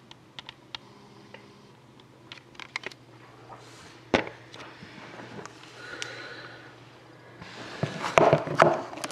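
A sealed, shrink-wrapped trading-card box being handled: a few sharp clicks near the start, scattered knocks and taps, then denser rustling and tapping in the last second or two as the box is turned over. A low steady hum runs underneath.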